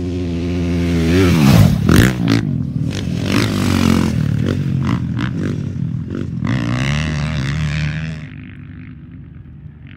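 Off-road race dirt bikes passing close at speed with their engines revving hard. The pitch falls as the first bike goes by about a second and a half in, another engine revs up around seven seconds, and the engine noise drops away abruptly a little after eight seconds.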